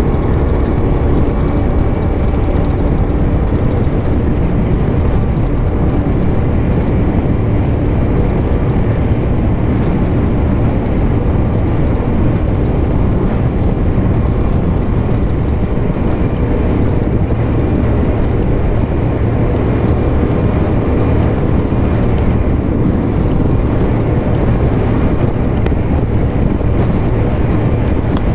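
Fountain 42 Lightning powerboat running at speed: a loud, steady engine drone mixed with the rush of water and wind.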